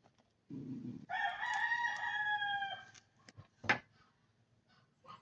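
A rooster crowing once, one long call of nearly two seconds. A short low rustle comes just before it, and a single sharp knock about a second after it ends.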